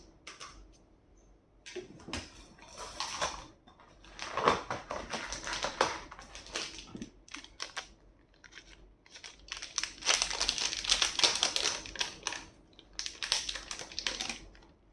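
Crinkling and rustling of packaging being handled, in several irregular spells, the longest and loudest near the end.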